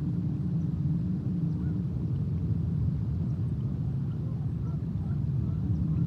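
A steady low rumble, with a steady hum in it that drops out about two seconds in and returns near the end. Faint, distant bird calls sound over it now and then.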